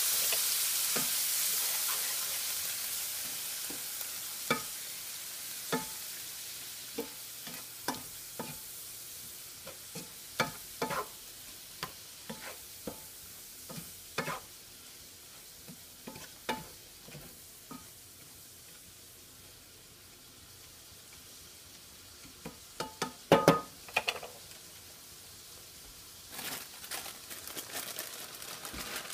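Vegetables hissing in a hot nonstick skillet as water boils off, the hiss fading over the first several seconds, while a wooden spatula knocks and scrapes the pan every second or two in stirring. A quick run of louder knocks comes about two-thirds of the way in, and a plastic bag crinkles near the end.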